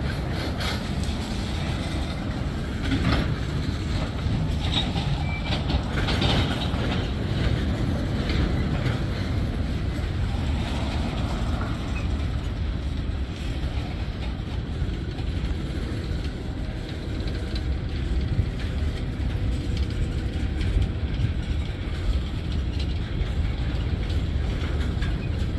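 Freight train cars, mostly tank cars, rolling past with a steady low rumble of steel wheels on rail. Sharp clicks and clanks over the rail joints come mostly in the first several seconds.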